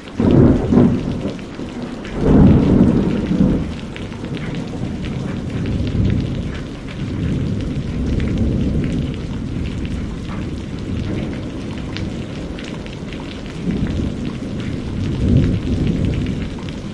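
Thunderstorm: thunder rumbling over steady rain, with loud peaks at the very start and about two seconds in, then a long low rumble and another swell near the end.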